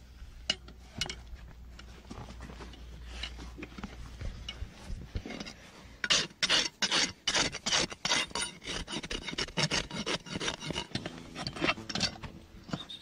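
Farrier's hoof rasp filing a horse's hoof. A few light, scattered strokes at first, then from about six seconds in a fast, steady run of loud back-and-forth strokes, about three a second.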